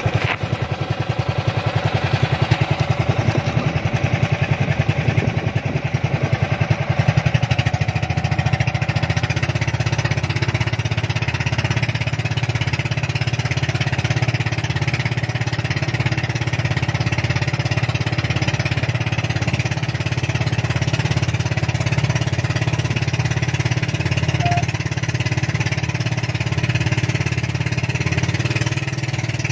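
A small engine running steadily with a fast, even chugging beat.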